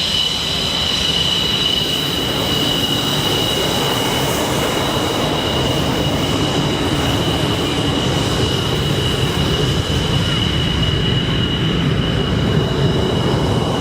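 Jet whine from a MiG-29's twin Klimov RD-33 turbofans running at a steady setting: two steady high-pitched tones over a constant rushing roar.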